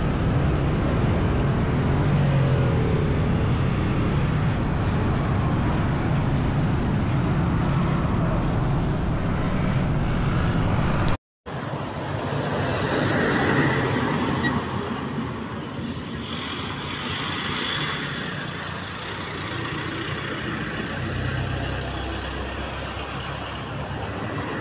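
Road traffic passing close by: cars and motorcycles on the road, with a heavy low rumble of engines and tyres. About halfway through, the sound cuts out for a moment, then a lighter rushing noise carries on.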